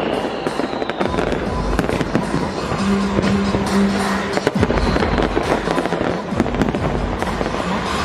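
Fireworks display: a dense, continuous run of shell bursts, bangs and crackling.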